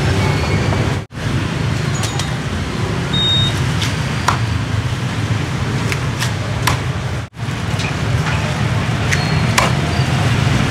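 A cleaver chopping roast pork on a thick wooden chopping block: several sharp knocks a couple of seconds apart, over a steady hum of street traffic.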